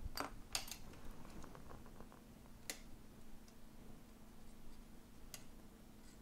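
A few faint sharp clicks and taps of tweezers working on the parts of an opened iPhone 7 Plus: two close together at the start, one about three seconds in and one near the end, over a faint steady hum.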